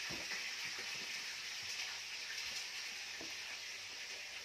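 A steady background hiss, with faint soft clicks and thuds of fingers pulling apart cooked lobster and handling rice on a plate.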